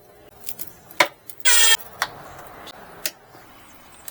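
Handling noises while heater parts are fitted: three sharp clicks about a second apart, and one short buzzing rasp about a second and a half in, the loudest sound.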